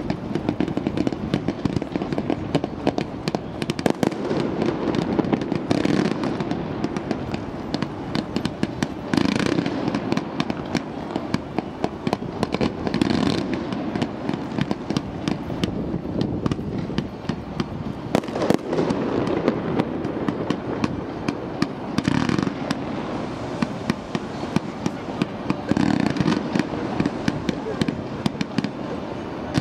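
Fireworks display: a dense, continuous run of crackling and popping from launches and bursts, with louder bangs every few seconds.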